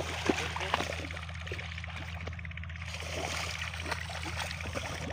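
Shallow muddy water sloshing and splashing in small, irregular bursts as hands grope through the mud and legs wade.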